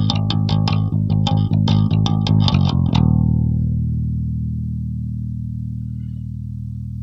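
Ibanez SRT805DX electric bass with EMG 40DC pickups, played clean without effects: a quick run of plucked notes, about four or five a second, then about three seconds in a low note left to ring and slowly fade.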